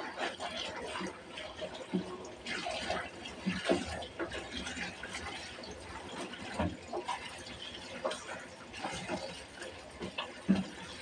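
Kangkong (water spinach) being washed by hand in a plastic basin of water: irregular sloshing and splashing, with a few sharper knocks.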